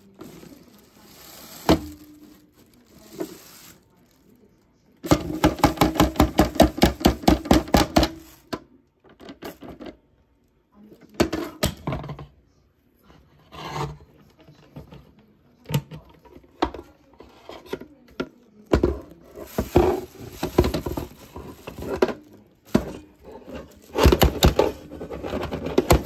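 A vacuum cleaner's clear plastic dust canister being emptied into a plastic garbage bag: scattered plastic knocks and rattles, with a fast run of even taps lasting about three seconds a few seconds in, and debris dropping into the crinkling bag.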